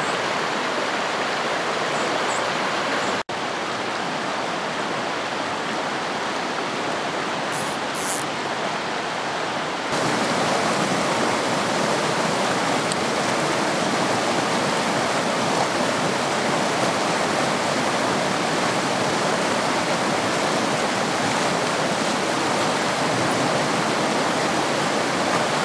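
Rushing water of a rocky mountain stream running over riffles, a steady noise. It cuts out for a moment about three seconds in and becomes a little louder about ten seconds in.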